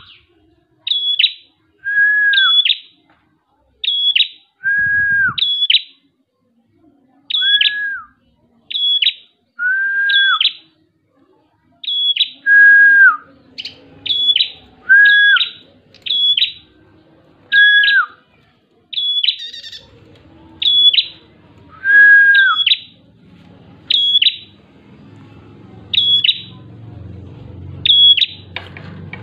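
Red-headed prenjak singing: short, sharp, high whistled notes that drop in pitch, repeated about once a second and often in pairs, with a lower slurred whistle every couple of seconds. A low background rumble builds in the last few seconds.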